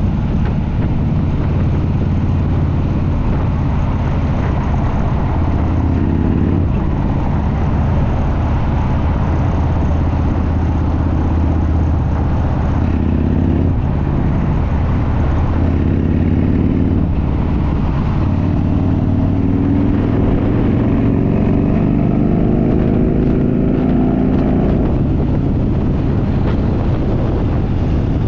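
Harley-Davidson V-twin motorcycle engine and exhaust running on the road, the pitch rising as it accelerates through the gears several times and dropping back between shifts, with steady wind noise.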